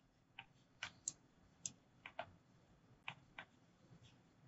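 Light computer mouse clicks against near silence, about eight scattered over four seconds, some in quick pairs.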